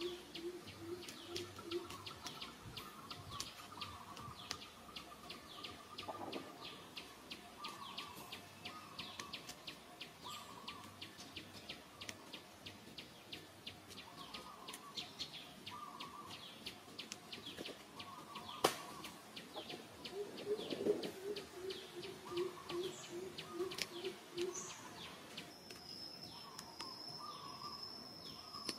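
Wild birds calling in forest: chirps and repeated mid-pitched calls, with a run of evenly spaced low hooting notes at the start and again about two-thirds through. A steady high whine sets in near the end.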